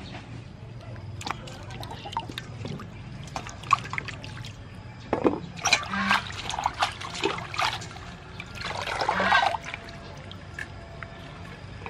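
Hands washing lettuce and chilies in a stainless steel bowl of water: sloshing, dripping and small splashes, with two louder spells of splashing, one about five to seven seconds in and one around nine seconds.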